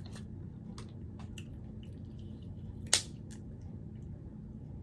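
Quiet eating sounds with a few small clicks and one sharp crack about three seconds in, as of a snow crab leg shell being snapped open.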